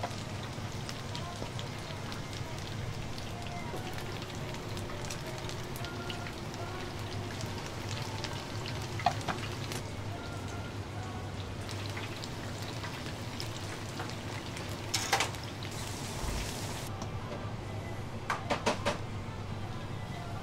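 Hot oil sizzling steadily in a deep fryer as vegetable kakiage tempura fries in metal rings, over a steady low hum. A few sharp clinks break in, about nine seconds in, around fifteen seconds, and a quick cluster near the end.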